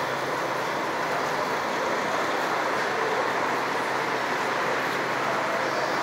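Steady running noise of parked coach buses idling, engines and air-conditioning going, with no rise or fall.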